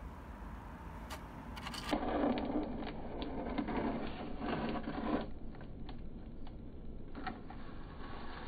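Crushed plastic water bottle crinkling and crackling as it is handled by hand, with a denser, louder stretch of rustling from about two to five seconds in and scattered clicks after.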